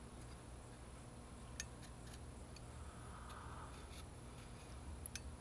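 A handful of light, sharp clicks and ticks from the plastic side handle and metal depth-stop rod of an unplugged impact drill as they are handled and adjusted, the sharpest about a second and a half in, with a brief soft rustle midway. A low steady hum lies beneath.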